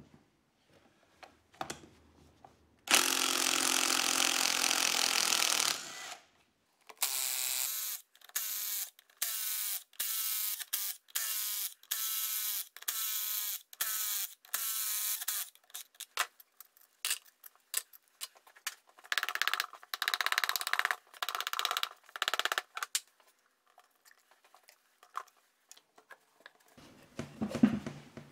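Cordless impact wrench undoing the end-case bolts of a Toyota E154F gearbox. One long hammering burst of about three seconds is followed by a run of about a dozen short bursts, each rising in pitch as a bolt spins free. A few more bursts follow, then light metallic clicks and knocks.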